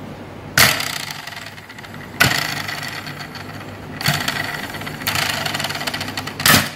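Plastic blocks on a VTech Turn and Learn Cube's roller bars spun by hand, four times, each spin a burst of rapid clicking that fades as the block slows. A short loud knock comes near the end.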